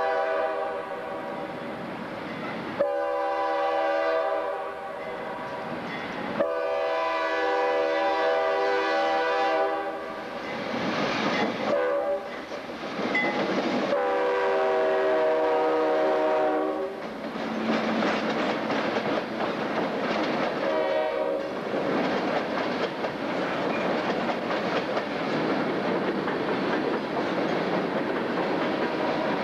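Diesel locomotive air horn sounding a chord in long blasts: long, long, short, long, the grade-crossing signal. Then the locomotives and empty coal hoppers roll past with a steady rumble and wheels clacking over the rails.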